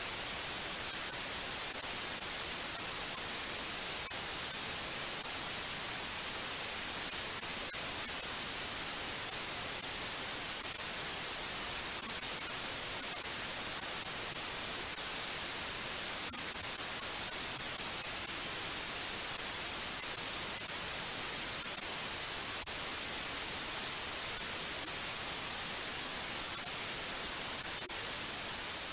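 Steady white noise: an even, unbroken hiss, brightest in the treble, with no other sound over it.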